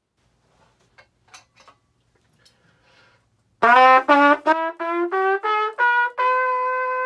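A few faint handling clicks, then a Stagg C trumpet, played with a Bach 1E mouthpiece, running a one-octave ascending C scale in the low register note by note, with the top note held for about a second.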